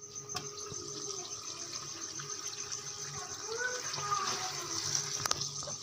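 Keema and kachnar curry simmering in a wok on low heat: a steady soft bubbling and sizzling of the thick sauce. A light click comes just after the start as the glass lid is set on.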